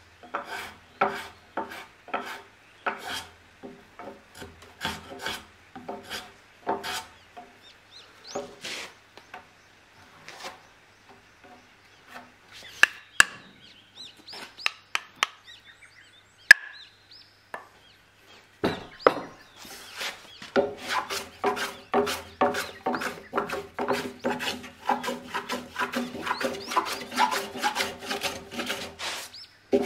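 Small Japanese hand plane taking short shaving strokes across the end-grain slope of a Japanese pine beam joint, about one stroke a second at first. Near the middle the strokes stop and there are only a few sharp taps. In the last third the strokes come faster, two or three a second.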